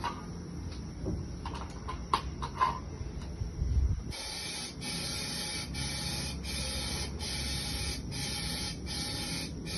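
Compressed-air spray gun hissing in short, evenly repeated bursts, about one and a half a second, starting about four seconds in after a few light clicks and knocks.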